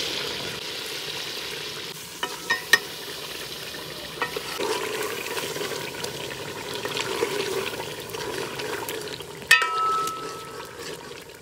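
Chicken karahi sizzling and frying in a metal pot while a steel ladle stirs it, knocking against the pot a few times. About nine and a half seconds in comes a louder metal clink that rings briefly.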